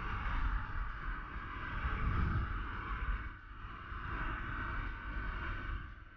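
Quad bike engine running while riding over sand, with heavy wind rumble on the microphone; the level rises and falls a couple of times.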